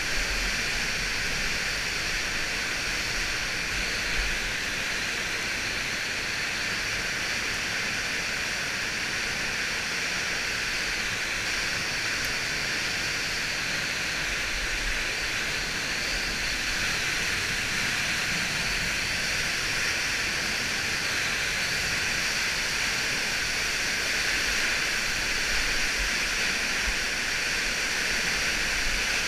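Steady rushing hiss of running water in a cave, unbroken throughout.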